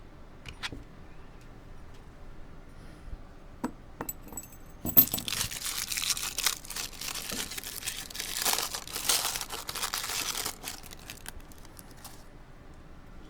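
A few light metal clicks, then about seven seconds of dense metallic rattling and scraping as lock picks and a small brass padlock are handled.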